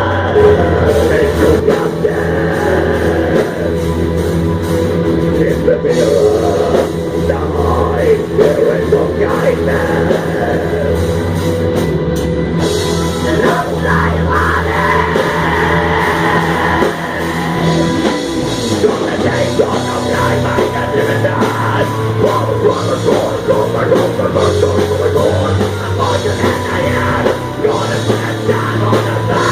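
Live heavy metal band playing an instrumental passage: distorted electric guitars, bass and drum kit, with the bass note shifting about eighteen seconds in.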